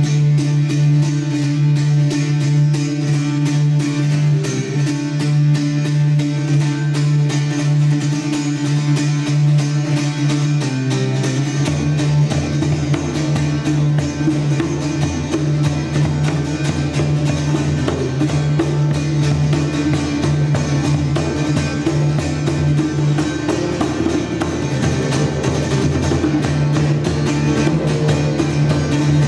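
Live acoustic music: a steady low drone under a plucked long-necked string instrument, with a darbuka joining about twelve seconds in, played by hand in quick strokes.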